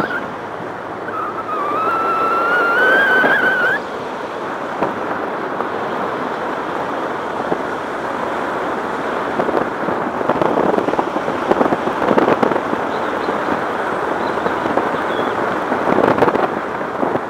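Wind rushing and buffeting on a microphone held outside the window of a moving car, with crackling gusts and road noise. A rising whine is heard for the first few seconds and cuts off suddenly about four seconds in.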